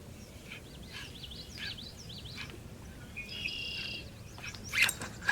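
Songbirds calling: a run of short, quick chirps, then a buzzy trill a little past halfway. A short, sharp splash or knock near the end is the loudest sound.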